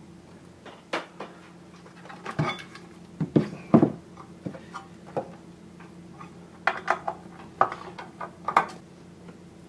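Metal casing of a car amplifier being handled and turned over on a workbench: a string of clanks and knocks, loudest around the middle, with a quicker run of clicks and taps near the end.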